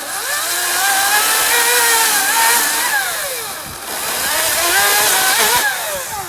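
Ryobi 40-volt brushless cordless chainsaw cutting a felling notch into a tree, its motor whine sagging in pitch as the chain bites into the wood and rising again as it frees up, several times over. The saw stops near the end.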